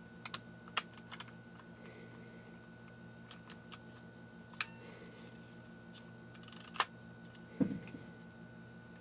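Small sharp clicks and taps of hands working the plastic and metal parts of an RB67 220 film-back insert and its slotted take-up spool while threading film, scattered a second or two apart, with a duller knock near the end, over a faint steady hum.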